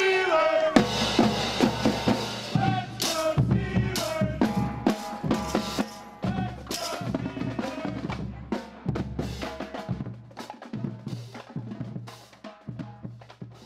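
Marching drumline playing together: snare drums, tenor drums and bass drums beating out a cadence, fading out near the end.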